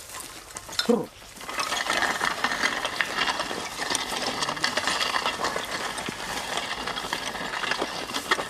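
Donkey-drawn plough scraping and rattling through dry, stony soil, a dense gritty noise full of small clicks. A short voice call sounds about a second in, before the scraping sets in.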